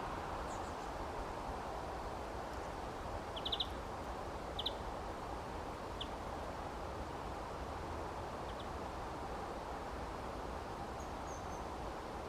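Small birds giving brief high chirps: a quick run of three about three and a half seconds in, then a few single notes, over a steady outdoor hiss.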